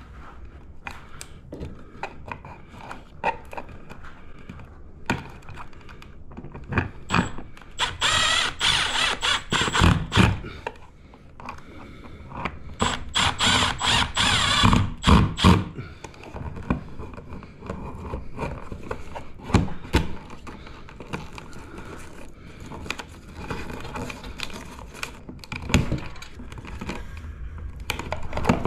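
Milwaukee cordless driver running in two spells of about two to three seconds, about 8 and 13 seconds in, driving the screws that clamp an old-work electrical box into a ceiling hole. Short knocks and clicks from the box and cables being handled come in between.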